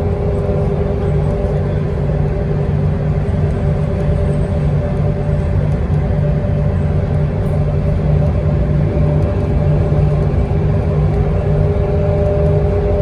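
Steady ride noise of a transit bus cruising at freeway speed, heard from inside: a low engine and road rumble with a steady mid-pitched hum riding over it.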